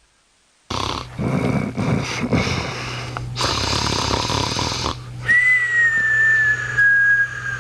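Handheld two-way radio cutting in suddenly with loud hiss and crackle over a steady hum. About halfway through, a whistling tone joins it and slides slowly down in pitch until the end.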